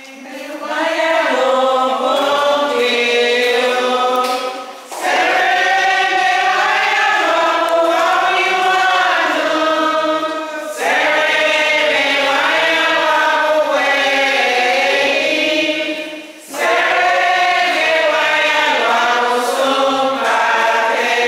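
A congregation of mixed voices singing a hymn, in phrases about five to six seconds long with short breaks for breath between them.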